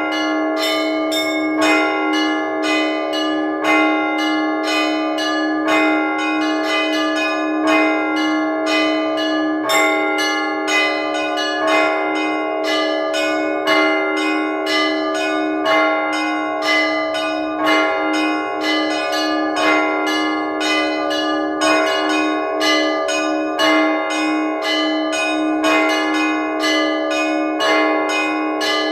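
Orthodox church bells rung by hand from the bell tower: quick repeated strikes on the smaller bells over a steady, lower sustained bell tone, the pattern cycling about every two seconds. This is Sunday ringing that calls parishioners to prayer.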